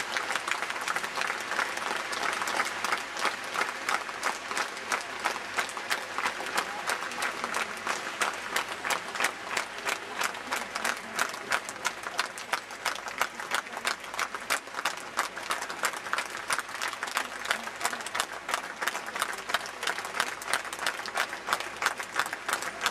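A large audience applauding. After a few seconds the clapping settles into a steady beat of about three claps a second, everyone clapping in unison.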